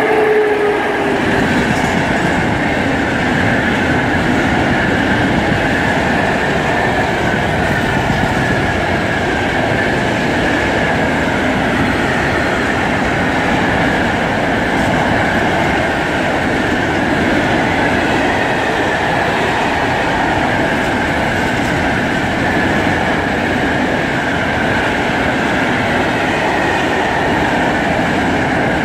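Freight train passing close at speed. A PKP Cargo electric locomotive goes by with a falling whine in the first second, then a long string of open freight wagons rolls past in a steady, loud rush of wheel and rail noise, with a high ringing tone running through it.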